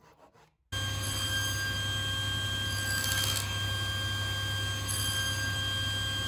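Table saw motor and blade spinning at a steady pitch, starting abruptly just under a second in.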